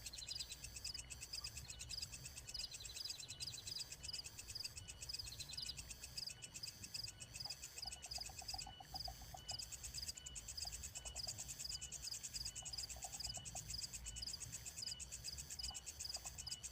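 Ambient insect chorus: crickets chirping in fast, steady pulsed trills, with a few brief lower pulsed trills partway through.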